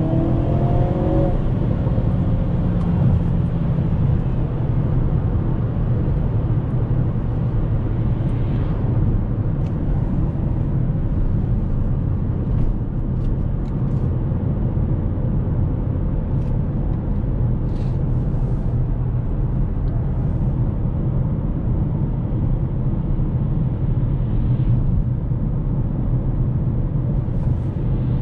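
2022 Hyundai Kona N's 2.0-litre turbocharged four-cylinder engine driving: its pitch climbs briefly at the start, then the car cruises at a steady speed with a constant engine drone and road and tyre noise.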